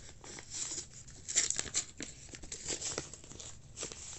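Packing tape and packaging being torn and crinkled by hand as a heavily taped package is pulled open, in irregular rustles and short crackles, loudest about a second and a half in.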